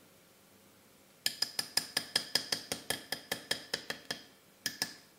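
A spoon clinking against a glass mixing bowl while stirring batter: a quick run of ringing strikes, about five or six a second for nearly three seconds, then two more clinks near the end.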